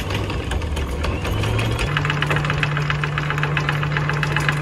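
Maxwell 3500 electric anchor windlass paying out chain, the motor hum rising in pitch over the first two seconds and then running steady. The chain links clatter rapidly and evenly over the gypsy and the bow roller.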